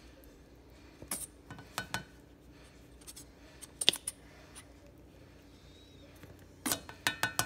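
Scattered light clicks and taps from a plastic squeeze bottle of Dijon mustard being shaken and squeezed into a plastic measuring spoon over a saucepan. The sharpest snap comes about four seconds in, and a quick run of taps follows near the end.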